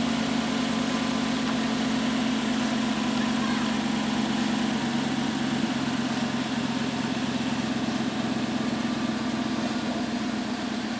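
Vehicle engine idling with a steady, even hum.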